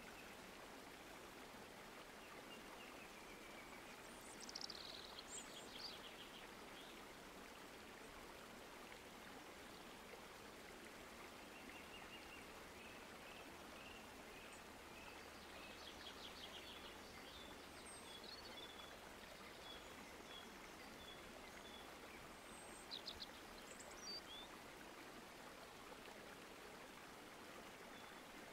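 Faint outdoor ambience: a steady low hiss with birds chirping and calling on and off, in several short runs of quick high notes.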